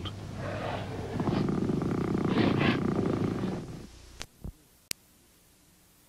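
New Zealand (Hooker's) sea lion giving a low, pulsing rumble. About four seconds in it cuts off abruptly, and a few sharp clicks follow before only faint tape hiss remains.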